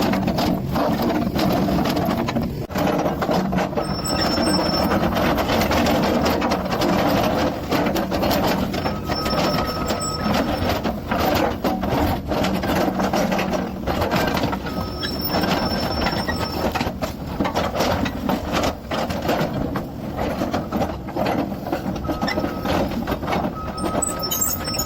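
Digger (excavator) at work: its engine running under load with continual rattling and clanking of rock and metal, and short high squeals that come and go several times.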